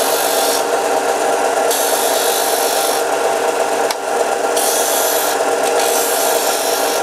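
Bench disc sander running with a steady hum while the top end of a small wooden plant marker is tilted against the disc to round it off. The gritty hiss of wood on the abrasive comes and goes in four passes of about a second each.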